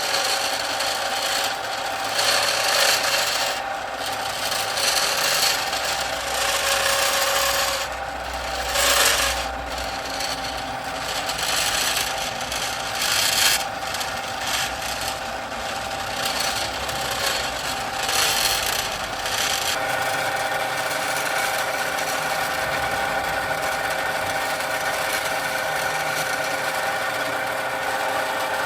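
Irregular scraping strokes of a hand file working a piece. About two-thirds of the way through, a small machine motor takes over, running steadily.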